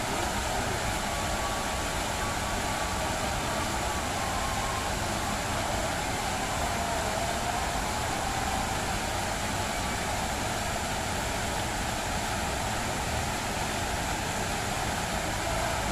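Steady rushing and splashing of a multi-jet fountain's water columns falling back into the pool.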